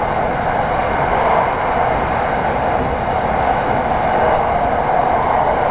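Steady running noise of a Bangkok SRT Red Line electric commuter train, heard from inside the carriage, with a faint high steady whine over an even rumble.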